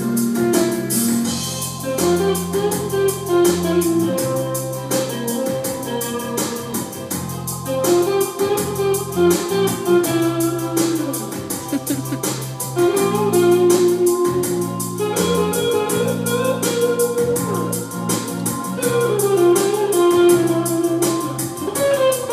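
Instrumental break of a song: a drum kit keeps a steady beat under guitar and a lead melody line.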